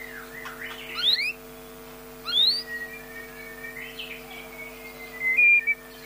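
Bornean white-rumped shama singing clear whistled phrases. Sharp rising notes come about one and two and a half seconds in, and a loud high note near the end, over a faint steady hum.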